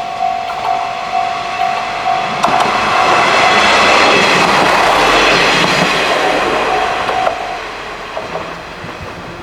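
Level-crossing warning bell ringing a little over twice a second while a train passes through the crossing. The train's noise swells to a peak about four to five seconds in, then fades as it moves away. The bell stops shortly after the train has gone.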